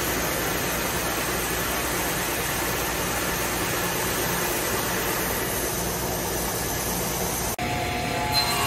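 Stationary edge belt sander running steadily as a wooden board is held against the moving belt, a constant whooshing machine noise. About 7.5 seconds in it cuts off abruptly and gives way to a different machine hum with a few steady tones.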